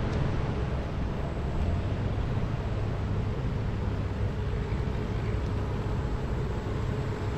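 Steady low rumble of distant boat engines carrying over the water, with a faint constant hum.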